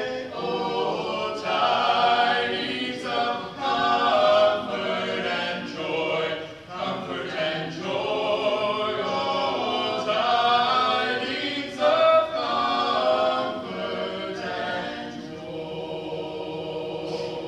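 A group of voices singing a cappella in harmony, unaccompanied, closing on a long held chord near the end.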